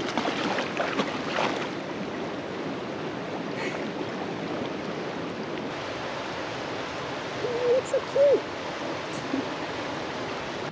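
Fast muddy creek rushing in a steady wash, with splashing from a dog wading through it in the first couple of seconds. About eight seconds in, a few short squeaks that rise and fall in pitch stand out as the loudest sound.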